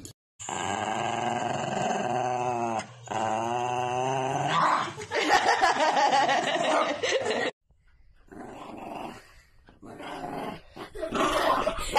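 Small dogs growling angrily. First comes a long, drawn-out pitched growl that dips in pitch about three seconds in and turns rougher and harsher. After a break it gives way to broken bursts of growling from another dog.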